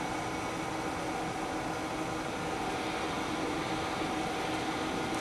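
Steady room hum and hiss with a few constant tones, unchanging throughout.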